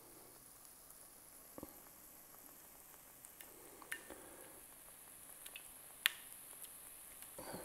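Battered walleye pieces frying in hot oil: a faint, steady sizzle with a few sharp clicks. Soft wet squishes come from batter being worked by hand.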